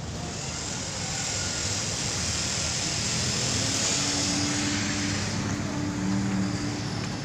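Vehicle passing by outdoors: a steady rushing hiss that swells through the middle and fades near the end, with a low engine hum under it.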